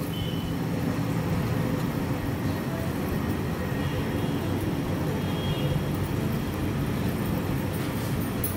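Thin masala curry boiling hard in an aluminium pot over a high gas flame: a steady bubbling rumble.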